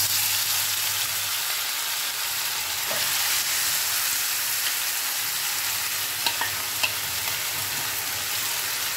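Marinated chicken sizzling in hot oil in a nonstick kadai. The sizzle starts suddenly as the chicken goes into the oil and holds steady, with two light clicks between six and seven seconds in.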